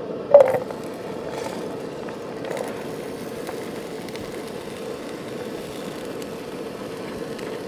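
Camp stove burner running with a steady hiss. There is one short ringing knock, like cookware set down, about half a second in.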